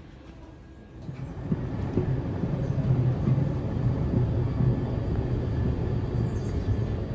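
Airport moving walkway (travelator) running underfoot: a steady low mechanical rumble with light rattling knocks, starting about a second in.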